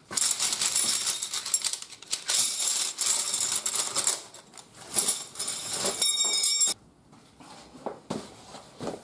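Aluminium camp-stretcher poles clattering and clinking against each other as they are gathered up and pushed into a nylon stuff bag. A brief metallic ring sounds near the end, and the rattling stops sharply about seven seconds in.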